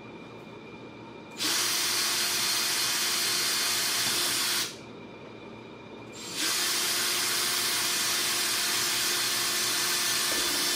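Cordless drill running twice, about three seconds and then a longer run, a steady motor whine under a loud hiss as it bores holes through tough saddle leather.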